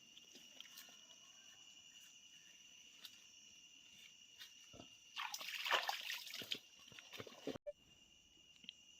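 Insects trill steadily in a high, even drone. A little past the middle, water sloshes and splashes for about a second and a half, then cuts off abruptly.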